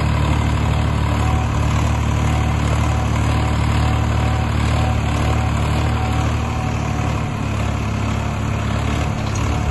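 Swaraj 963 FE tractor's diesel engine running steadily under load as it pulls a mouldboard plough through the soil.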